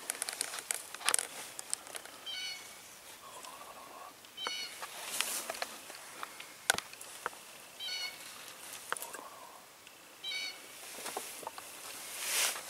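Wild turkeys calling: a short run of high, raspy notes comes four times, about every two to three seconds, over scattered clicks and leaf rustle. A brief rushing sound near the end is the loudest moment.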